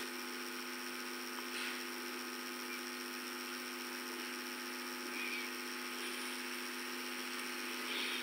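Steady electrical hum, a low tone with a few overtones, over a faint hiss: the background of the audio line with nobody speaking.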